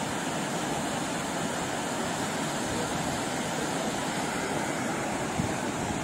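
Distant waterfall, a steady, even rush of falling water.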